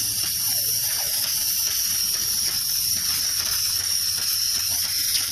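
Aerosol can of engine cleaner spraying a steady hiss through a thin extension straw onto an oily valve cover.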